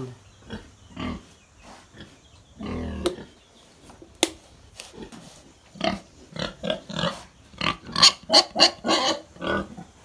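Domestic pigs grunting in a wooden pen: a few scattered grunts, a sharp knock about four seconds in, then a quick run of short, loud grunts, about three or four a second, in the second half.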